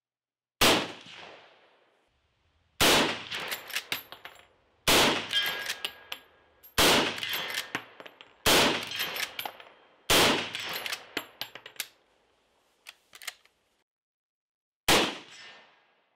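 Marlin 336 lever-action rifle in .30-30 firing seven shots, roughly two seconds apart for the first six with a longer pause before the last near the end. Each shot is followed by a quick run of metallic clicks and clatter as the lever is worked to eject the case and chamber the next round.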